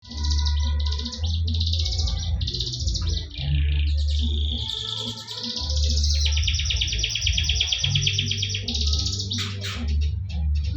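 Domestic canary singing in long, rapid rolling trills, one phrase after another with short breaks, the kind of song used to set other canaries singing. Underneath runs background music with a low bass.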